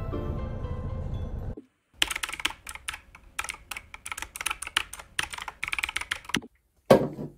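Soft music stops about a second and a half in. Then comes computer keyboard typing: a quick, irregular run of keystrokes lasting about four seconds, and after a short pause one louder, heavier keystroke.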